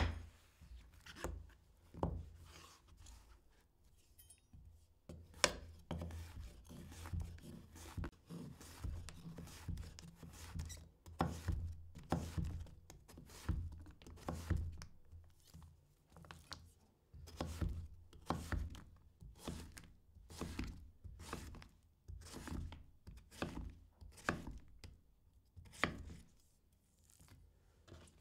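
Knife chopping food, a long run of separate cuts about one or two a second, pausing briefly a few seconds in and again near the end.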